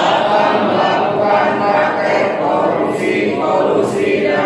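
Many voices reciting a pledge together in Indonesian, a large group repeating in unison a line just read out by a leader; the voices overlap into a dense chant-like sound.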